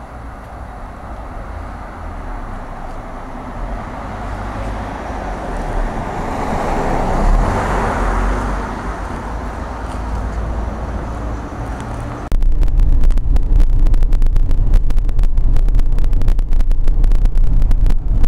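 A car drives past on a wet street, its engine and tyre hiss swelling to a peak about seven seconds in and then fading. About twelve seconds in the sound cuts abruptly to a much louder rumble with dense crackling: the buffeting noise inside a moving car on an open road.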